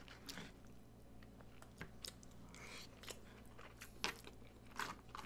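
Close-miked chewing of a mouthful of loco moco: soft, wet mouth clicks and smacks, with a couple of sharper clicks near the end.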